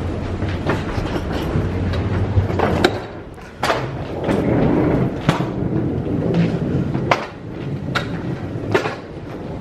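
Suitcase wheels rumbling along a jet bridge floor, ending about three seconds in. Then walking sounds with a few sharp clicks and knocks spread through the rest.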